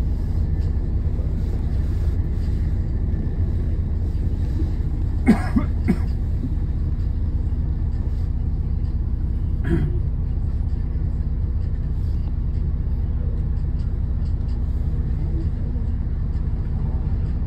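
Alexander Dennis Enviro400MMC double-decker bus engine running with a steady low hum while the bus waits in slow traffic, heard from inside on the upper deck. A person coughs sharply twice, about five seconds in, and again about ten seconds in.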